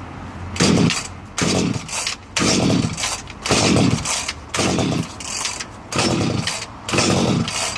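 Echo CS-3600 two-stroke chainsaw's recoil starter pulled seven times, about once a second, each pull a short cranking burst that falls away without the engine catching. The failure to start is a symptom of a deteriorated fuel line, possibly slightly cracked, that lets the tank lose the pull needed to draw fuel into the carburetor.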